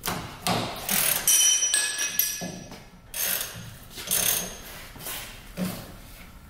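Metal hand tools clinking and clanking irregularly against the car's rear underside as bolts are undone, with a short metallic ringing about a second and a half in.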